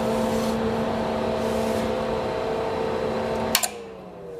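CA20 power amplifier running with its cooling fan, a steady hum and whoosh. About three and a half seconds in the power switch clicks off, and the fan's pitch falls as it spins down.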